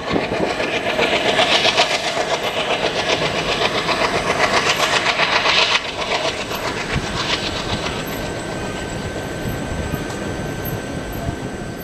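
Passenger train rushing past close by, its wheels clattering rapidly and rhythmically over the rail joints. About six seconds in the sound switches abruptly to a steadier, quieter rumble of a train running farther off.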